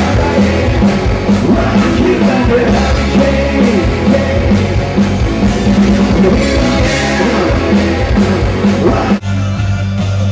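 Live rock band playing: electric guitar, bass guitar and drum kit with a singer. About nine seconds in it cuts abruptly to different music with a strong, steady bass line.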